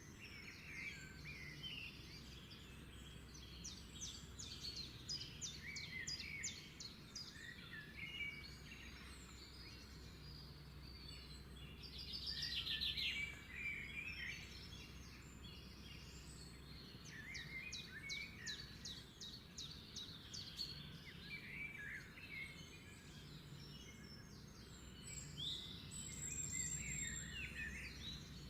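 Several small birds chirping and singing, with fast trills and scattered short calls, over a steady low hum. The loudest moment is a buzzy trill about halfway through.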